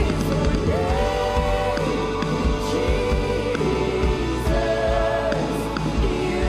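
Live worship band playing a slow song, with singers holding long notes, each about a second, over a steady bass.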